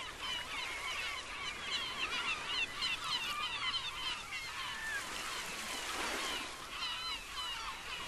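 A flock of birds calling at once: many short, wavering calls overlapping in a dense, steady chorus.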